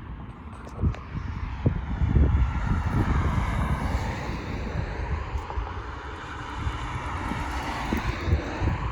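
A passing engine's steady drone, swelling about two seconds in and fading slowly over the rest, with wind rumbling on the microphone.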